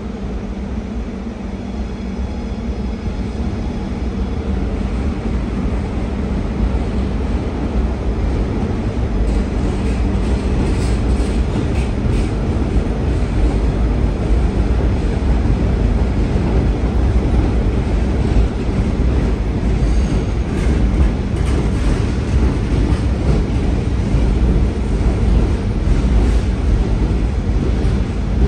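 R211S subway train rolling slowly past along the platform: a low rumble of wheels and running gear under a steady electrical hum, growing louder, with light clicks and rattles from about a third of the way in.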